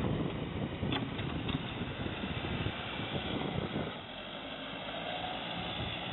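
Backhoe loader's diesel engine running as it digs and turns a compost pile, with wind on the microphone; the low rumble thins out about four seconds in.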